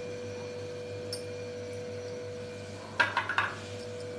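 A quick cluster of clinks from kitchenware, a few sharp strikes about three seconds in, over a steady low hum.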